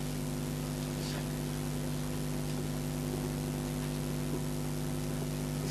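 Steady electrical hum with a constant hiss: background room tone.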